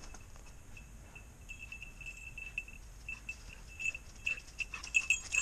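A spaniel's collar bell jingling irregularly as the dog runs, faint at first and growing louder and more frequent from about a second and a half in as it comes closer, over light rustling of dry leaves underfoot.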